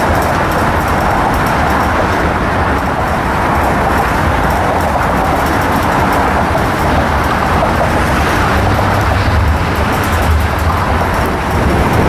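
Steady, loud vehicle noise with a deep low rumble, swelling slightly in the last few seconds.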